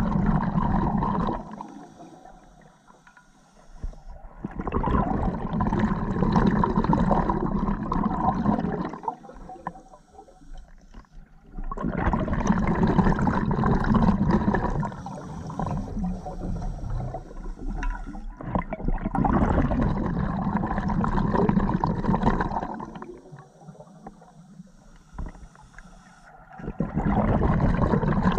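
Open-circuit scuba breathing heard underwater: long rushes of exhaled bubbles from the regulator, one every six to eight seconds, with quieter spells between them as the diver inhales.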